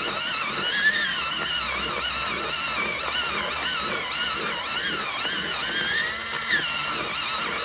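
Bostitch personal electric pencil sharpener running with a wooden #2 pencil held in it, its cutter grinding down the broken-off point. A steady, high whine that wavers in pitch.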